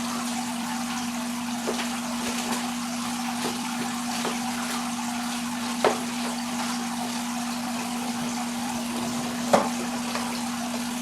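Steady rushing and trickling of water from a running saltwater aquarium, with a steady hum under it. A few light clicks and two sharper knocks come through, one about six seconds in and a louder one near nine and a half seconds.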